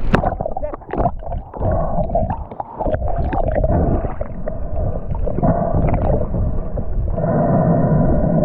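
A freediver's dive heard through an underwater camera: a splash as the camera goes under, then muffled bubbling, gurgling and small clicks. From about seven seconds in, a steady droning hum with several pitches comes through the water.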